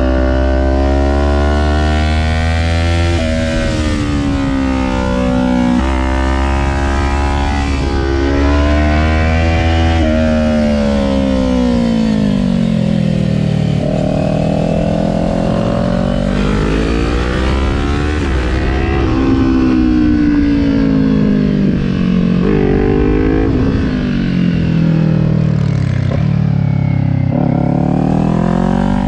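Kawasaki Ninja 400's parallel-twin engine heard on board, revs climbing and falling over and over, with sudden steps in pitch at gear changes. A low wind rumble on the microphone comes and goes underneath.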